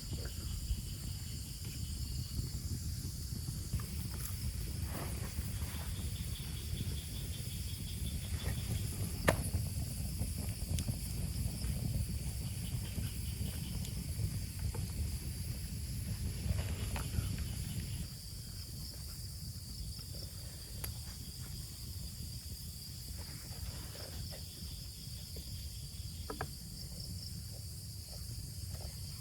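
Insects, crickets among them, chirring steadily in several high-pitched layers over a low rumble that drops off about eighteen seconds in, with a sharp click about nine seconds in.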